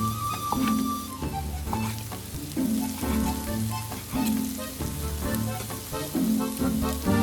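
Food sizzling as it fries in a pan, under background music with a steady beat.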